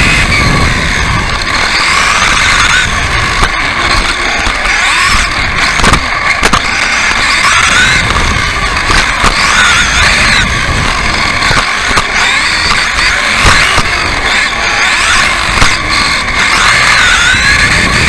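Radio-controlled off-road buggy racing, heard from on board: its electric motor and drivetrain whine rises and falls in pitch with throttle and speed. Sharp knocks and rattles come from the chassis over the bumps of the track.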